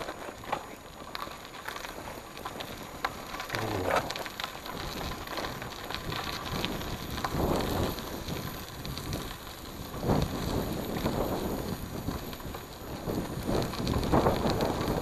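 Cross bike rolling over a gravel track: the tyres crunch and crackle on loose stones, with many small clicks and rattles that swell louder at times over rougher patches.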